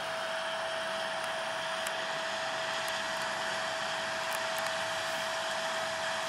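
Parked Boeing 777's turbine running steadily: an even rushing hiss with one steady whining tone through it.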